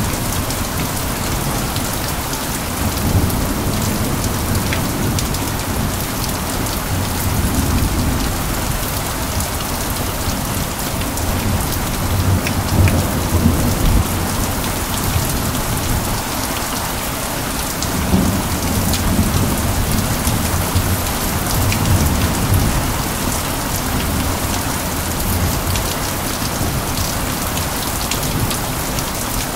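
Steady, heavy rain pattering on surfaces, with a low rumble underneath that swells and fades several times.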